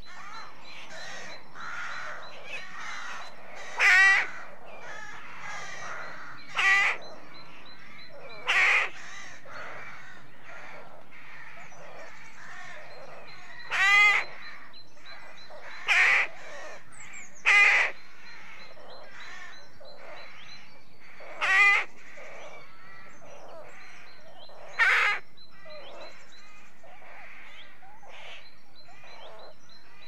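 A rookery: many rooks calling at once in a steady clamour, with about eight louder, harsh caws from nearer birds at irregular intervals.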